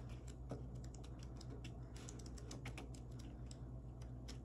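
Sticker book pages being leafed through by hand: scattered light paper flicks and ticks, faint, over a steady low hum.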